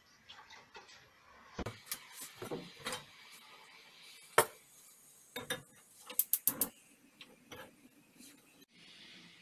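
Metal saucepans knocking and clinking on a gas hob as milk is set to heat, in scattered sharp knocks. The loudest comes about four and a half seconds in, and a quick run of four clicks follows about six seconds in.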